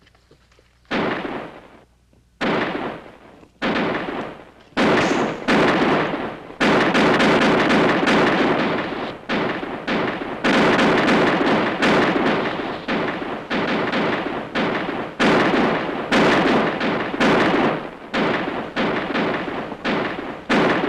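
Gunfight: single gunshots about a second apart, then from about five seconds in rapid, overlapping shots from several guns, each echoing.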